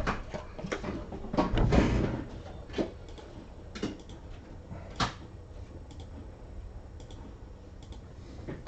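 Handling noises of trading cards and their packaging on a table: a burst of rustling and knocking about a second and a half in, then a few separate sharp clicks.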